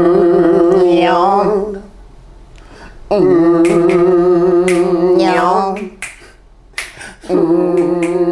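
A man singing a gospel song unaccompanied, holding three long notes at one steady pitch, each wavering at its end, with short pauses between them. Sharp finger snaps sound among the notes.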